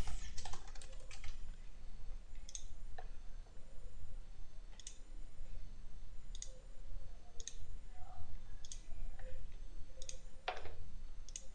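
Computer mouse clicking: single sharp clicks every one to two seconds, with a quick cluster of clicks near the start, over a steady low hum.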